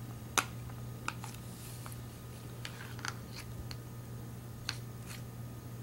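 A few light clicks and taps as a paintbrush and plastic bowls are handled, the sharpest about half a second in, over a steady low hum.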